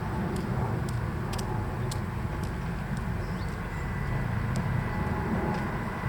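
Steady low rumble of a vehicle running, with a few faint clicks over it.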